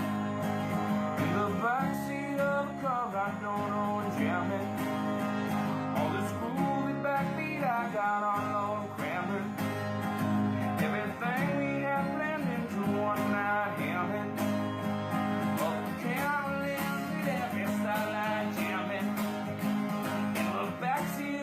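Background music: acoustic guitar with strumming, country in style, with a singing voice.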